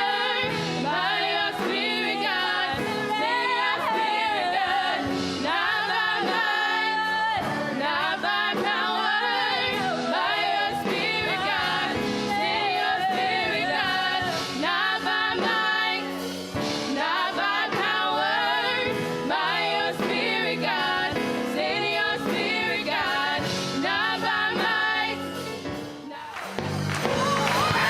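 Gospel singing by a choir with instrumental accompaniment. It breaks off briefly near the end before a louder passage starts.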